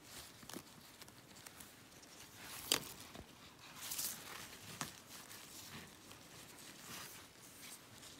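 Footsteps and rustling through forest undergrowth, with scattered soft crackles and one sharper click a little under three seconds in.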